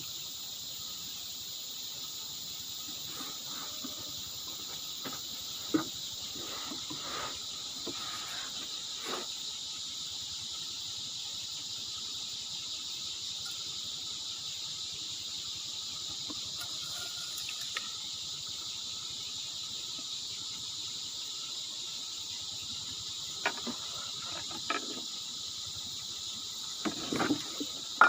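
Steady chorus of insects, a continuous high-pitched trill, with a few scattered faint knocks, more of them near the end.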